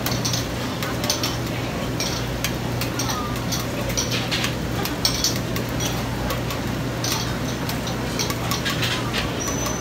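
Metal spatula tapping and scraping on a large iron griddle of frying oyster omelettes: many short clicks and clinks over a steady low hum.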